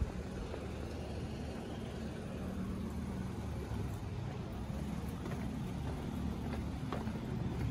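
Steady low rumble of road traffic in the street, with no speech.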